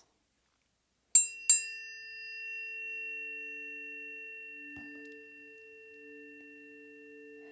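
Two planetary tuning forks, apparently the Venus and Mars forks, are struck one right after the other about a second in. They ring on as a long sustained chord: a bright high overtone pair over two low humming tones, slowly fading.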